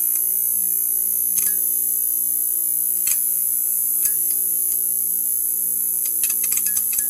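Neon sign buzzing, with a steady electrical hum and a high whine, broken by sharp crackling clicks now and then and a quick run of them near the end.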